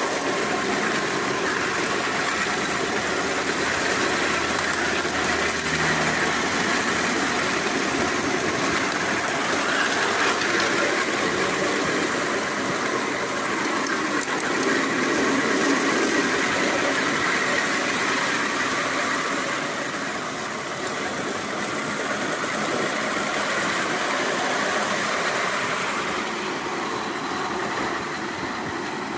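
Steady rolling noise of a 1:8 scale model tram's steel wheels running on miniature railway track, easing off slightly about two-thirds of the way through.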